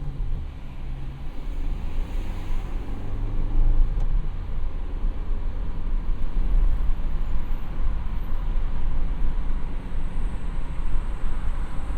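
A car running: a steady low rumble that builds over the first few seconds and then holds level, with a faint steady whine above it.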